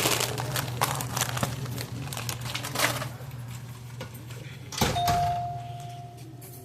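Clicks and rustling of items being handled, then about five seconds in a store's door chime strikes once and holds a single clear tone for about a second and a half.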